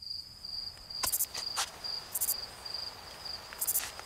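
Night insect chorus: crickets trilling on one steady high pitch, with short bursts of higher buzzing about every second or so. A few sharp clicks come about a second in and again near the end.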